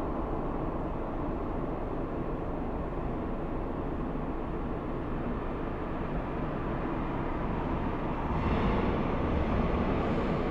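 Steady low rumble inside a Lisbon Metro train car. A louder hiss joins about eight seconds in.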